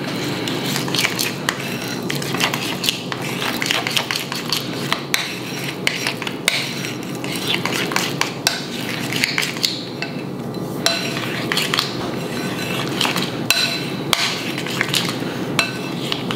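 Metal spoon stirring and scraping around a ceramic bowl, with a constant run of quick clinks against its sides, as powdered peanut butter is mixed with water into a runny paste.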